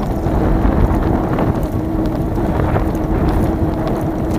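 Wind buffeting the microphone of a moving e-bike, mixed with faint knocks and rattles as the bike rides over a warped concrete-slab cycle path; a steady hum runs underneath.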